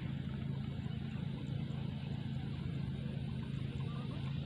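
Steady low drone of an engine running at constant speed, with a faint even hiss over it.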